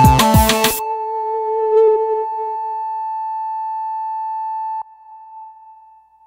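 Background electronic music with a beat that stops abruptly just under a second in, leaving one held electronic tone that cuts off suddenly about five seconds in, followed by a faint fading tail.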